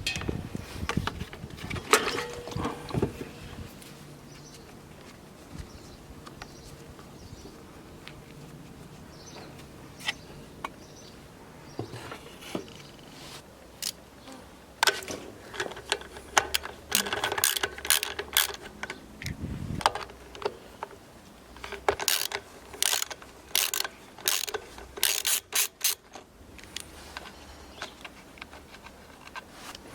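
Clicks, clacks and knocks of hand tools and mower parts being handled during repair work on a petrol lawnmower: a few knocks at the start, a quieter stretch, then two dense runs of rapid clicking in the second half.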